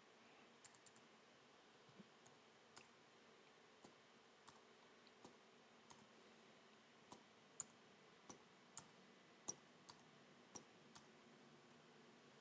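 Faint computer keyboard keystrokes: single sharp key clicks at irregular intervals, a couple a second, as commands are typed at a terminal.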